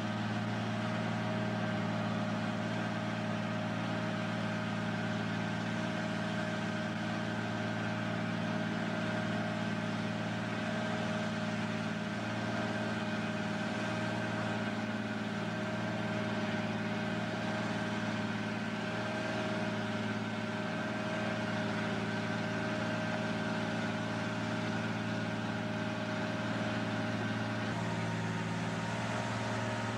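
Cummins 220 diesel engine of a four-axle truck-mounted Lima 65-T cable shovel, running at a steady, even speed as the machine drives along slowly. The engine note shifts slightly near the end.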